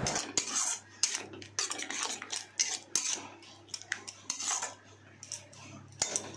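Flat metal spatula scraping and knocking against a metal kadai in irregular strokes while stirring a thick curd and nut-paste masala, over a faint steady low hum.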